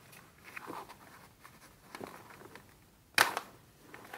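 Glossy magazine poster paper being handled, with faint rustles and one sharp, loud crackle of paper about three seconds in.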